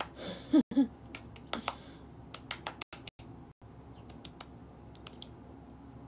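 Scattered light clicks and taps, irregularly spaced, from small objects being handled.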